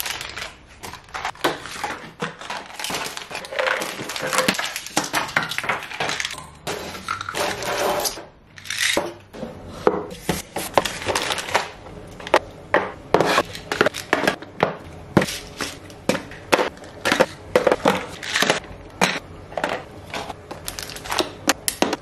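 Plastic supplement and pill bottles and small packets being handled, knocked together and set down in a wooden drawer with dividers: a busy, irregular run of clatters, knocks and crinkles.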